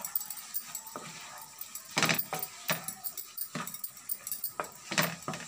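A wooden spatula stirring prawns in a nonstick frying pan: irregular scraping and knocking strokes against the pan, the strongest about two seconds in and near the end.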